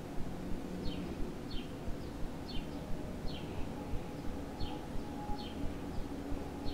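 Satin-gloved fingertips gently tapping on a camera lens in a steady rhythm, about three soft taps a second. Faint, high, falling chirps sound now and then behind the taps.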